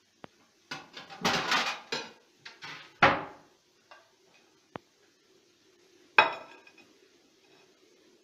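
Kitchen clatter of a plate and cutlery being handled on a counter: a run of knocks and clinks in the first few seconds, loudest about three seconds in, then one sharp clack about six seconds in.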